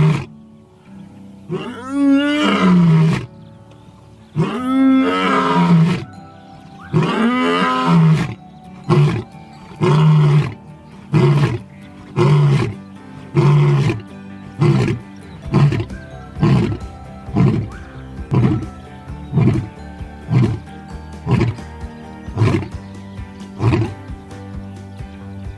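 A lion's roaring bout: three long, loud roars, then a run of shorter grunting roars about one a second that grow shorter and fainter toward the end. Steady background music plays underneath.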